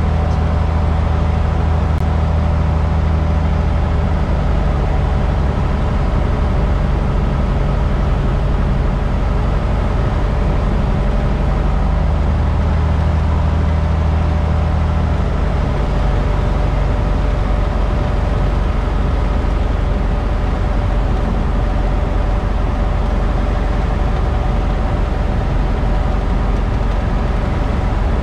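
Cabin drone of a 1958 Cessna 172's Continental O-300 six-cylinder engine and propeller in flight, heard from inside the cockpit. A loud, steady drone whose deepest hum fades and comes back a couple of times.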